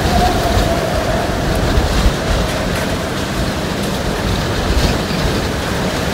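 Hurricane eyewall wind blowing hard and steadily, with a faint whistling tone near the start.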